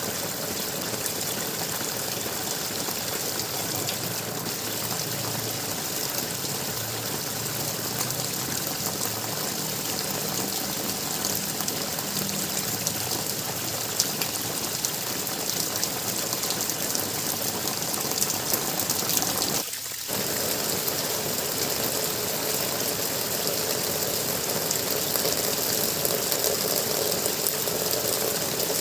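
Water gurgling steadily, with a brief drop in level about two-thirds of the way in.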